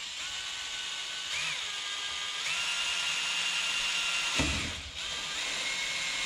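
Cordless drill boring through a fiberglass panel. Its motor whine steps up in pitch twice in the first few seconds, and about four and a half seconds in there is a low knock and the whine dips for a moment before running on.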